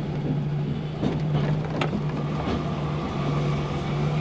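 HGV lorry's diesel engine running steadily as it rolls slowly along, heard from inside the cab: a steady low hum with scattered light clicks and rattles.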